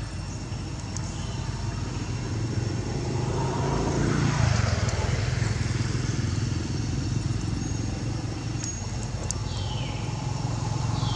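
A passing motor vehicle's engine running steadily, swelling about four seconds in and growing louder again near the end.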